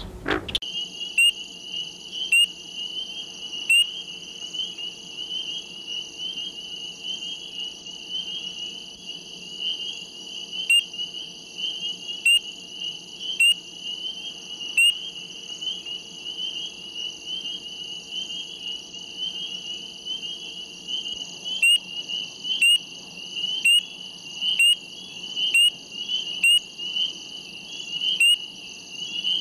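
Chorus of several frog species: a steady, high-pitched trill runs throughout, and loud, short, sharp calls come about once a second in runs, with pauses of several seconds between the runs.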